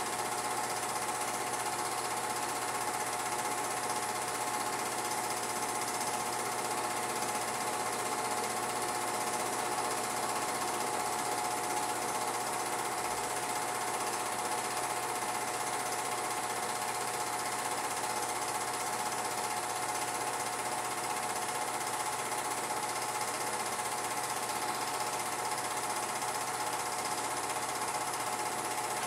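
Film projector running: a steady, rapid mechanical clatter with a constant hum, unchanging throughout.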